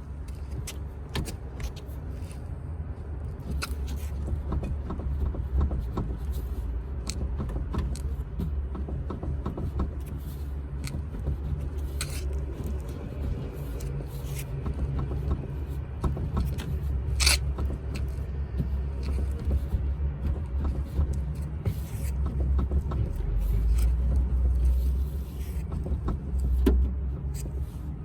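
Suspension of a BMW F10 530d xDrive being pushed and rocked by hand, giving irregular sharp clicks and knocks over a low steady rumble, the loudest click about 17 seconds in. This is the knock the car makes over uneven road, which the owner suspects comes from the sway bar or a control arm.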